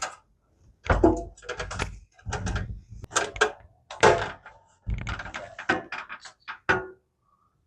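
Thumps and knocks of someone climbing a steep pull-down attic ladder, a run of irregular steps that quicken toward the end and stop about seven seconds in.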